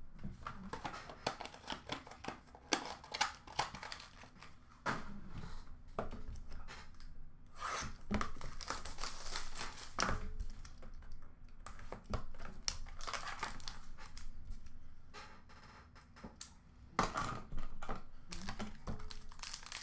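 Hockey-card boxes and packaging being handled: rustling and crinkling of wrappers and cardboard, with scattered clicks and knocks as boxes and cards are picked up and set down.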